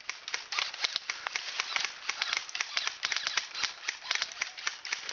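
Airsoft guns firing, a rapid, irregular run of sharp clicks, several shots a second.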